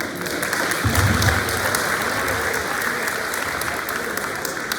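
Audience applauding, the clapping swelling about a second in and then holding steady, with a brief low bump about a second in.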